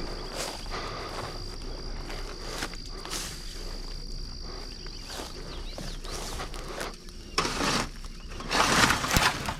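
Close rustling and shuffling, with two louder bursts of rustling near the end. A steady high-pitched insect trill runs underneath and fades out about halfway.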